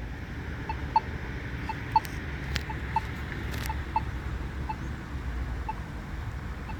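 Accessible pedestrian signal push buttons sounding their locator tones: short beeps, each about once a second, from two buttons out of step with each other, over steady traffic rumble.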